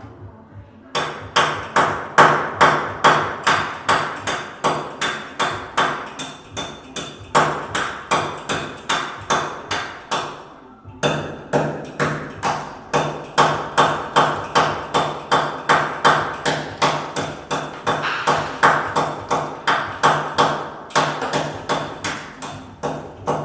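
Rapid, even hammer strikes at the edge of a small wall opening for an exhaust fan, about three or four a second, each with a short metallic ring. The strikes pause briefly about ten seconds in.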